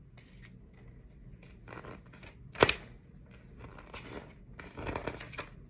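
A paper leaflet being handled and its pages turned, giving several short rustles. A sharp tap or snap of the paper about two and a half seconds in is the loudest sound.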